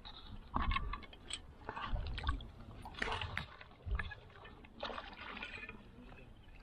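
Footsteps wading through shallow water over coral, with irregular sloshes and splashes about once a second.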